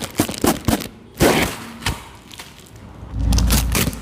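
A series of sharp knocks and clicks, with a low rumble for about a second near the end.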